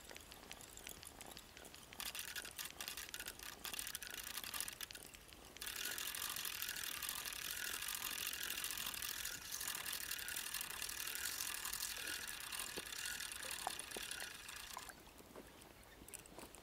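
Spinning fishing reel being cranked to wind in line. A fast ticking for a few seconds gives way to a steady whirring of the reel's gears with a slow regular pulse, stopping near the end.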